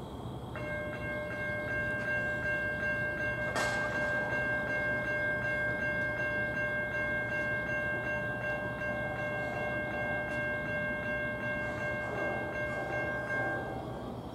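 Railroad grade-crossing warning bell ringing steadily at about three strikes a second, starting about half a second in and stopping just before the end, with one sharp clank about three and a half seconds in.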